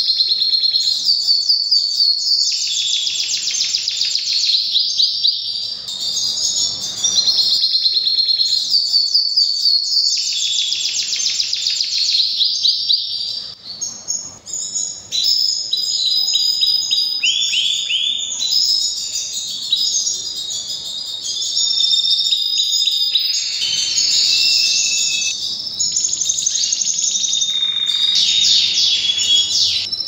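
Domestic canary singing a long, loud breeding-season song of fast rolling trills and quick repeated high notes, with a brief dip about halfway through.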